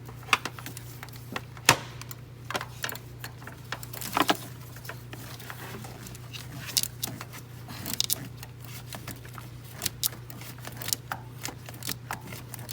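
Ratchet wrench clicking and metal tools clinking in irregular bursts while a spark plug is loosened, over a steady low hum.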